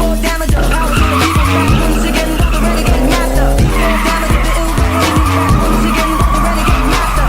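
Drift car sliding with its tires squealing and engine running, over background music with a steady beat. The tire squeal starts about a second in, fades, and comes back stronger and steadier from about four seconds in.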